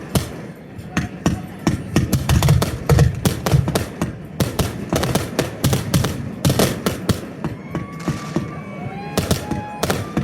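Fireworks display going off in rapid, irregular succession: many sharp bangs and crackles over deeper booms, heaviest a couple of seconds in.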